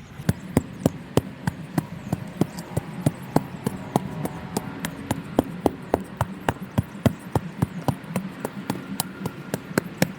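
A hand tool striking a tree stump's thick roots, hacking at them in a fast, even run of sharp blows, about three to four a second. A steady low hum sounds underneath.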